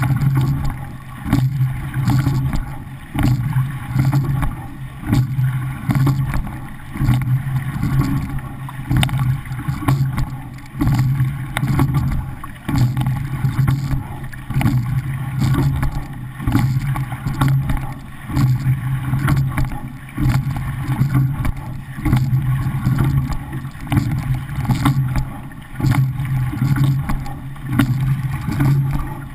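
Water rushing along the hull of a coxless pair racing shell, surging with each rowing stroke, about one stroke every two seconds, heard close from the bow deck. A steady low hum runs underneath.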